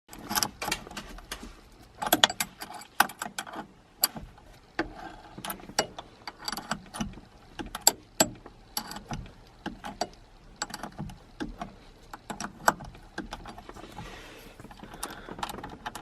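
Irregular metallic clicks, clinks and knocks of hand tools and hardware, likely a nylock nut being fitted on a short-shifter assembly, at a few to several a second.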